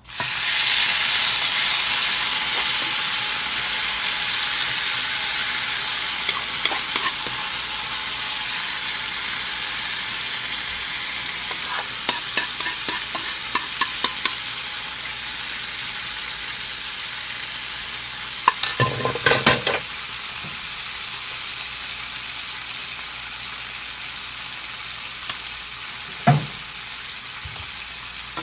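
Spicy stir-fry (duruchigi) sizzling hard on a hot pan and cast-iron sizzling platter over a gas burner, the hiss starting suddenly and slowly easing off. A quick run of metal clinks and scrapes of a spatula against the pan about two-thirds of the way in, and another clink near the end.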